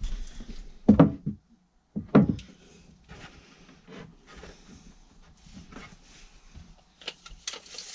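Wooden panels of an under-sink unit being set into a plywood cupboard: two sharp wooden knocks about one and two seconds in, then lighter knocking and scraping of wood on wood.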